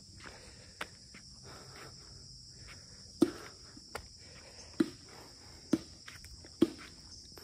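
Footsteps on a paved road at a steady walking pace, about one step a second, starting about three seconds in, over a steady high-pitched drone of insects.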